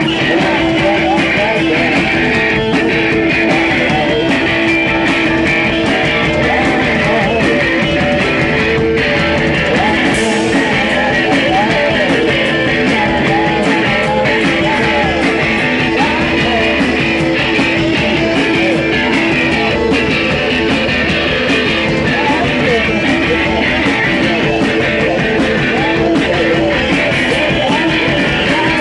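Rock band playing live, with electric guitar to the fore over a steadily held droning note.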